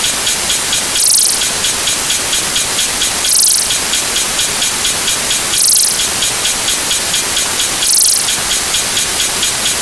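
Loud, dense, steady hiss like heavy rain or static, swelling and brightening about every two seconds.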